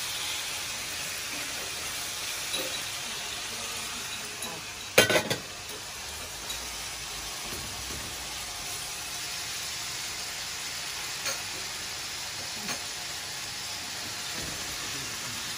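Ground meat sizzling steadily as it fries in oil in a skillet on a gas burner, stirred with a wooden spoon. A short clatter of knocks about five seconds in is the loudest sound, with a few light taps later.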